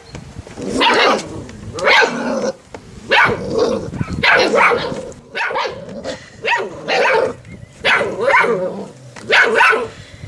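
Six-week-old Irish Water Spaniel puppy barks at play: a run of about ten short barks, roughly one a second.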